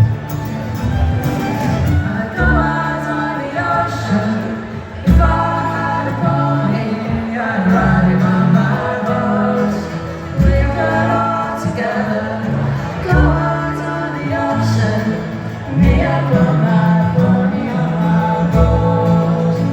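Music with singing: a band with a singer, its bass notes changing every second or so.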